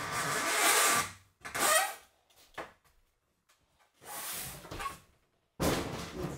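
Wood scraping and rubbing against wood in four bursts, the second with a brief squeak and the last starting suddenly, as old wooden furniture is dragged and handled.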